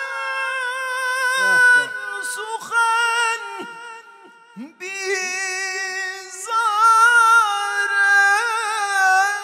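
A man chanting Quranic recitation in a high register: long held, wavering melismatic notes without words. There is a short pause for breath about four seconds in, and the voice grows louder again from about six and a half seconds.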